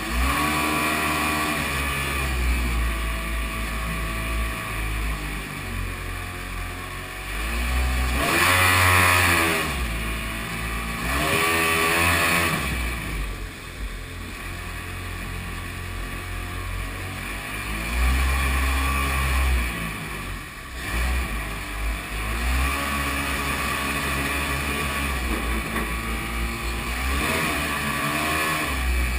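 Two-stroke Kawasaki 750 jet ski engine driving a jet boat up river rapids, revving up and back down again and again with the throttle, loudest in two surges about nine and twelve seconds in, over the hiss of rushing water and spray.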